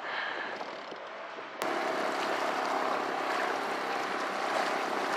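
Steady wind and water noise on a sailboat's deck, with a sharp click about a second and a half in, after which the noise is louder.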